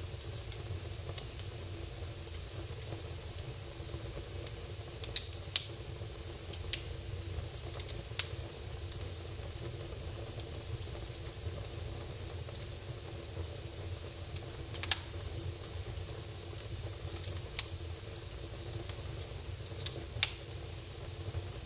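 Wood fire burning in a fireplace: a steady hiss with several sharp crackles and pops scattered every few seconds.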